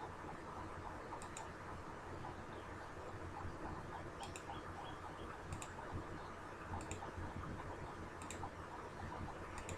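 Computer mouse clicking, single clicks and quick double clicks every second or two, over a low steady hum.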